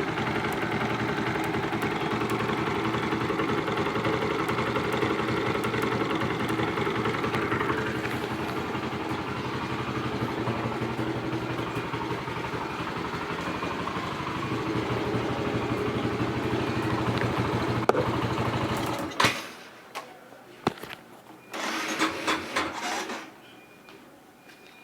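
Honda CS1 motorcycle's single-cylinder four-stroke engine running steadily with a rattling 'krotok krotok' noise, which the owner says comes on as the engine heats up and blames on low oil. The engine cuts off about 19 seconds in, followed by a few knocks and a brief rustle.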